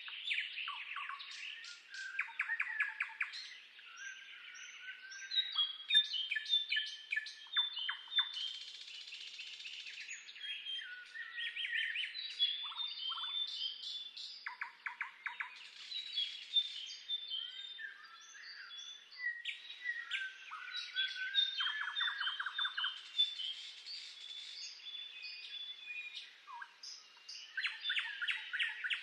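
Several songbirds singing together: a dense, unbroken chorus of chirps, whistled notes and quick trills.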